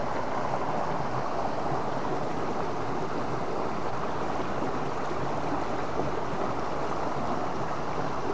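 Swift river current rushing, a steady even noise of fast-flowing water.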